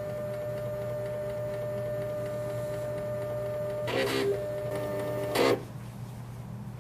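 Zebra ZXP3 card printer's motors running with a steady whine as the printer drives the feeder cleaning card through its cleaning cycle. There is a short mechanical clatter about four seconds in and another just before the motors stop, about five and a half seconds in.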